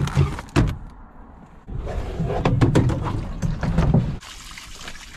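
Handling noise as a wooden cabinet panel is knocked and shifted, then a plastic water jug scraping and bumping as it is pulled out, with many sharp clicks. A steady hiss follows from about four seconds in.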